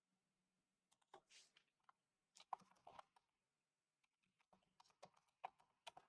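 Faint computer keyboard typing: scattered keystrokes in short runs with pauses between.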